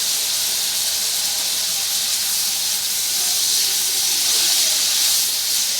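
Thin-cut pointed gourd (potol) sizzling steadily as it fries in hot mustard oil in a pan.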